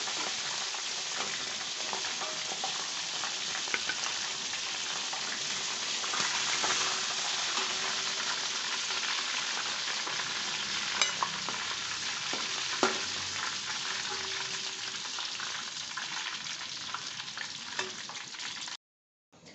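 Stingray pieces frying in hot oil: a steady sizzle with a few faint clicks. It cuts off suddenly about a second before the end.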